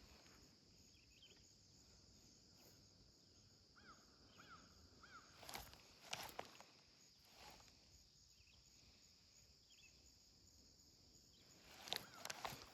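Near silence: quiet outdoor ambience with a steady high-pitched hiss, a few short chirps in the middle, and several faint clicks.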